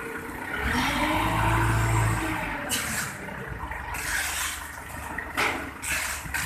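Forklift engine revving up and dropping back, with several short hissing noises after it.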